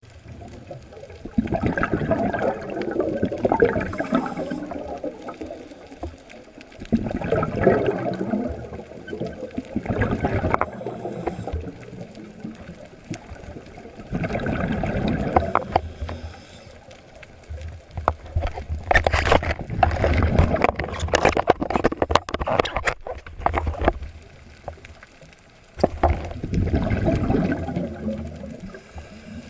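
Underwater recording of recurring bubbling and gurgling in bursts a few seconds long, five times, with quieter gaps between. The fourth burst, midway through, carries a run of sharp clicks.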